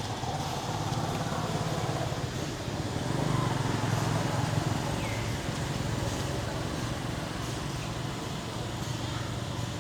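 Low engine rumble of a motor vehicle that grows louder around the middle, as if passing by, over a steady outdoor background noise.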